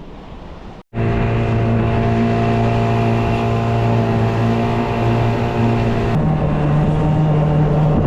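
A small boat's outboard motor running steadily under way. Its note changes about six seconds in.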